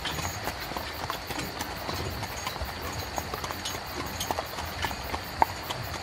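Horse's hooves clip-clopping on a road, with a steady low rumble of a horse-drawn carriage rolling along; the hoofbeats come as irregular knocks several times a second.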